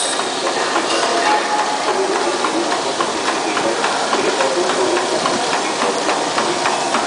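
Stainless-steel sesame roller mill running: a steady, loud mechanical noise with a dense patter of small clicks and rattles.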